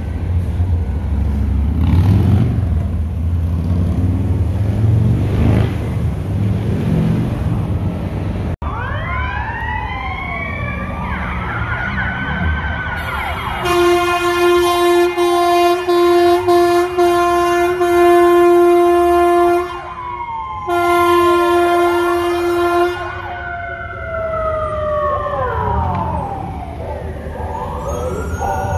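Street traffic rumble, then an ambulance siren starts about a third of the way in, wailing and yelping in rising and falling sweeps. In the middle it gives two long, steady horn blasts, and the sweeping siren carries on to the end.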